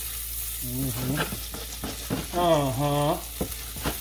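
Chopped onion and garlic sizzling in butter and oil in a frying pan, with a spatula scraping and tapping the pan now and then. Twice a man's voice hums or vocalizes without words, loudest near the middle.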